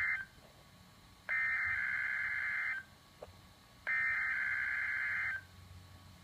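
NOAA Weather Radio SAME header data bursts for a Required Weekly Test, played through a weather radio receiver. The buzzing digital data tone comes in bursts of about a second and a half with roughly a second's pause between them: one burst cuts off at the start, then two more follow.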